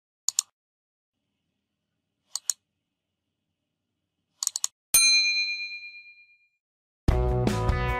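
Click sound effects for taps on a phone screen, a quick pair twice and a short run of clicks, followed by a bright bell ding that rings out and fades over about a second and a half. Music with guitar starts near the end.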